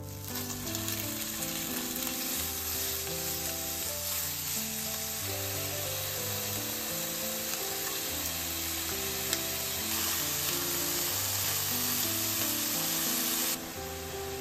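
Chicken thigh pieces, and then shredded burdock, sizzling in hot oil in a frying pan, a steady hiss that starts the moment the chicken goes in. The sizzle drops off sharply near the end, over soft background music.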